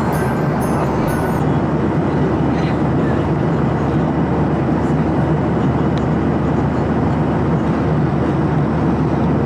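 Steady low cabin noise of a Boeing 737 airliner in flight, the even rush of engines and airflow heard from a passenger seat. Faint music ends about a second and a half in.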